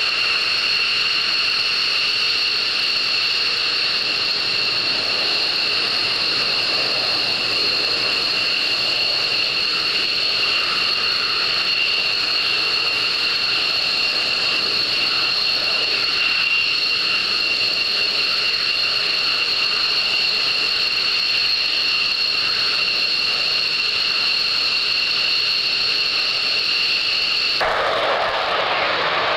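Twin-engine F-15 Eagle jet engines whining steadily at taxi power, a high two-note whine over a wide rush. About two seconds before the end the whine drops out suddenly and a broader engine rush takes its place.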